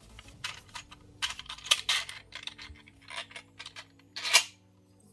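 3D-printed PLA plastic puzzle pieces being handled and fitted together: a series of light plastic clicks and clatters, the loudest about four seconds in.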